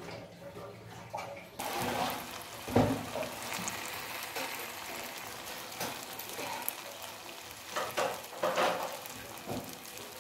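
A potato-dough ring deep-frying in hot oil: sizzling starts suddenly about a second and a half in, as the ring goes into the oil, and runs on steadily. There is a soft bump about three seconds in.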